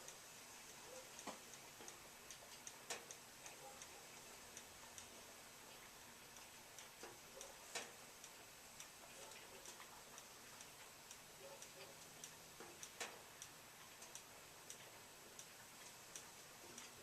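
Near silence with faint, irregular ticks and clicks scattered through it, a few stronger single clicks standing out.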